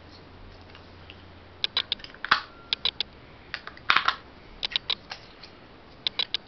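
Plastic clicks and clatters of batteries being fitted into a TV remote control's battery compartment. It is an irregular series of sharp clicks starting about one and a half seconds in, loudest around two and four seconds in.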